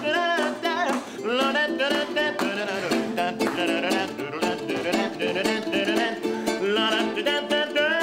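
Acoustic swing music: a ukulele strummed in a steady rhythm, with a snare drum and upright bass, and a man singing over it in sliding, wavering phrases.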